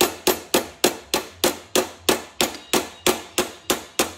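Rapid, even hammer blows, about four a second, from a small rounded-face Snap-on linear stretching hammer striking a sheet-metal flange. The flange is being staked over a 3/16 steel wire held in Fairmount wire edge pliers, the first stage of forming a wire edge.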